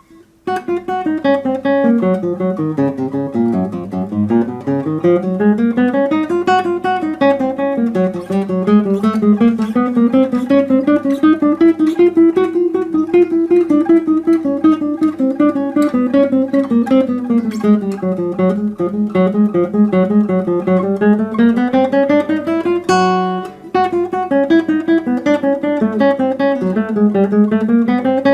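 Solo classical guitar playing a fast arpeggiated étude: a steady stream of quickly plucked notes over a bass line that rises and falls. Late on there is a chord and a brief break before the flowing notes resume.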